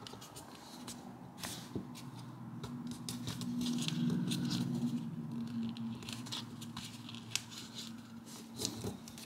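Small sheet of origami paper rustling and crinkling in the fingers as it is folded and creased, in many short crisp clicks. Under it runs a steady low hum that grows louder around the middle.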